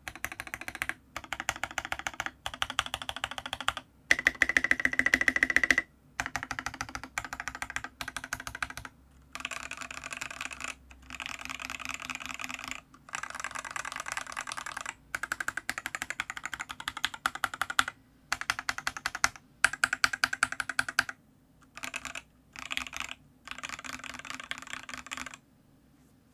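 Rapid, dense keystroke clatter on a Matrix Noah 65% mechanical keyboard with an aluminium plate, case foam, lubed C³Equalz Tangerine linear switches and KAT Milkshake keycaps, keys drummed quickly in bursts of one to two seconds with short pauses between them, stopping shortly before the end.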